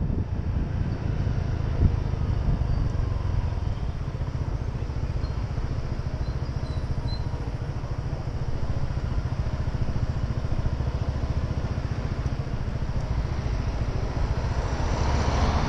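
Honda PCX 125 scooter's single-cylinder engine running at low revs in slow traffic, a steady low rumble. The noise swells briefly near the end.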